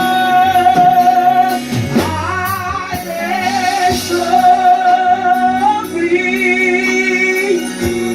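Church worship band playing, with a singer holding long sustained notes over the accompaniment.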